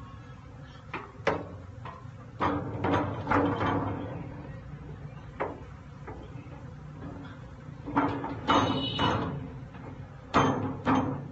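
Wooden honeycomb frames knocking and clattering against a stainless-steel hand-cranked honey extractor drum as they are handled in and out of it: a string of irregular knocks, with a ringing metal clang a little past the middle.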